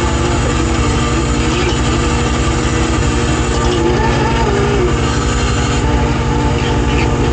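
Fishing boat's engine and deck machinery running steadily, a continuous rumble with a few held tones.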